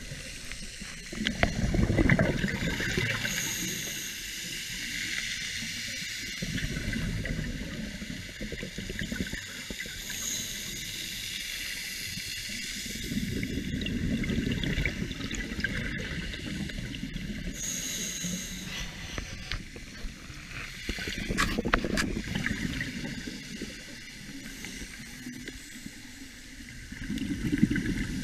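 A scuba diver's regulator heard underwater: a steady hiss with bubbling exhalations swelling up every five to seven seconds, and one sharp click about three-quarters of the way in.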